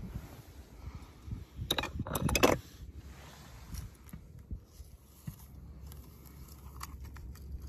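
Small hard toys clinking and clattering as they are handled, a quick cluster of sharp clicks about two seconds in, then a few faint ticks near the end.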